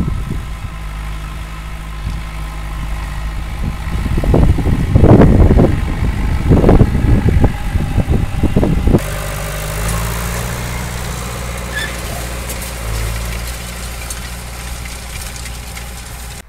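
Tractor diesel engine running steadily, with a few louder surges in the middle; the sound changes abruptly about nine seconds in.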